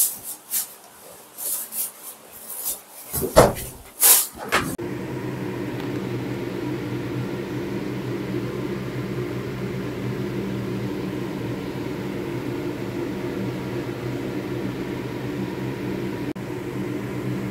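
Kitchen handling noises: a plastic grocery bag rustling and scattered sharp knocks, the loudest two about three to four seconds in. From about five seconds on, a steady machine hum with several held low tones takes over.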